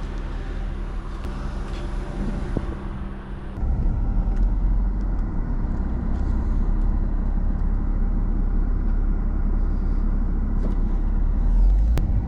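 A car driving: at first a steady engine hum, then from about three and a half seconds in a heavier, louder low rumble of engine and road noise.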